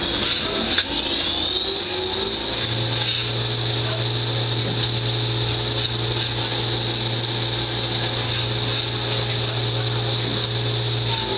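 Lathe machining the bearing seat and pad response area of a metal yo-yo: a high spindle whine rises in pitch in the first couple of seconds, holds steady, and drops near the end, with a low hum joining in about two and a half seconds in as the cut runs.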